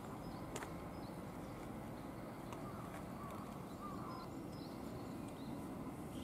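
Faint outdoor background ambience: a steady low hum, a single sharp click about half a second in, and a few faint wavering chirps around the middle.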